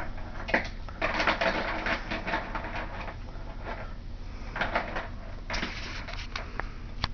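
Plastic toys on a baby's activity saucer clicking and clattering as they are handled and knocked, with a busy run of rattling about one to three seconds in.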